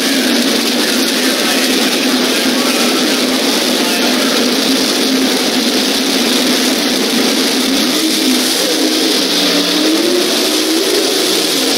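Drag race car engines running loud and steady at the starting line. Near the end the pitch climbs as an engine is revved.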